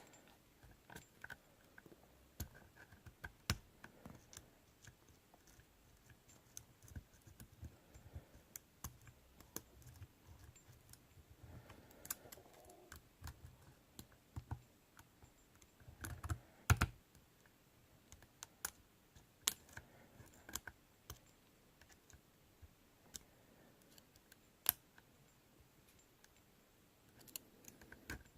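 Lock pick and tensioner working the pagoda-style core of a Mindy padlock: faint, irregular small clicks and light scraping as the pins and sliders are probed and set under tension, with a few sharper clicks a little past halfway.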